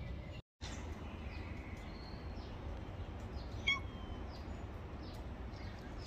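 A cat gives one short meow a little over halfway through, over faint bird chirps and a steady low background rumble.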